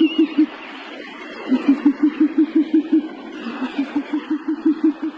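Owl hooting in quick runs of low, evenly spaced hoots, about seven a second, over a steady hiss. One run ends just after the start, and two more runs follow.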